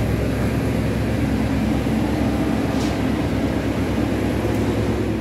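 Steady low mechanical rumble of a running vehicle engine, with a constant low hum.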